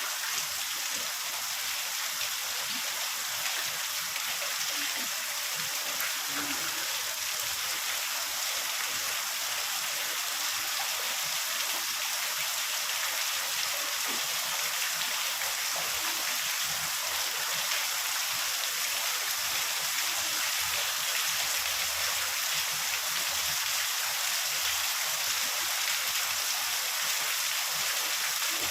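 Heavy rain falling steadily, an even hiss without thunder.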